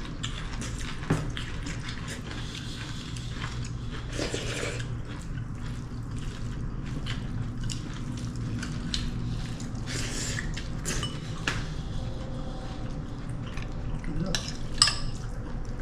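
Spoons and forks clinking and scraping on plates during a meal, in scattered short clicks over a low steady hum.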